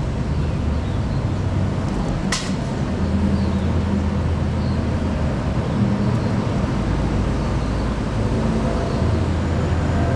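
Diesel bus engine running at low revs, a steady low drone that swells and eases. A brief sharp hiss comes about two seconds in.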